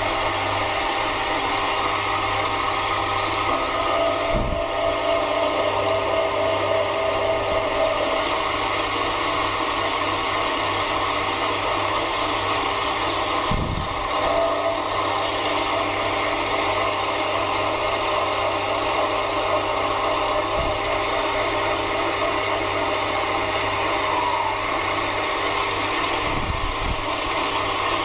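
Mini lathe running steadily, its motor and gearing humming, while a cutting tool turns an aluminium part; a faint whine comes and goes, with a few brief low thumps.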